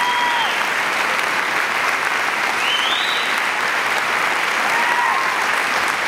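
Concert hall audience applauding steadily, with three short rising-and-falling cheers calling out above the clapping.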